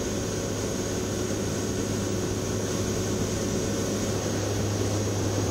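Steady drone of a WC-130J hurricane hunter's four turboprop engines and airflow, heard from inside the cabin. It is a strong low hum with a few fixed tones above it and an even rush of noise, unchanging throughout.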